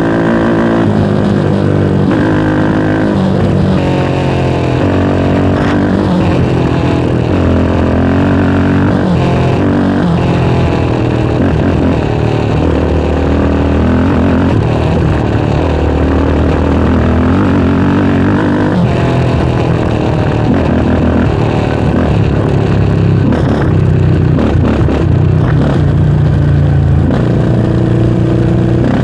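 Yamaha Raptor 700R's single-cylinder four-stroke engine running under way, its pitch rising and falling repeatedly with throttle and gear changes.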